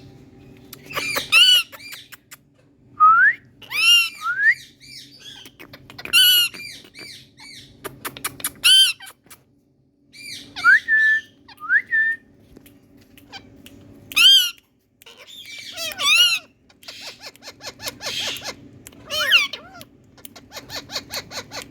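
Indian ringneck parakeets squawking in repeated harsh, arching calls, with a few short rising whistles mixed in, over a faint steady low hum.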